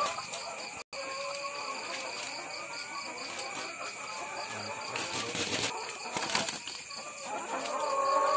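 Caged laying hens calling softly, the calls growing louder near the end, with two short bursts of wing flapping a little after halfway.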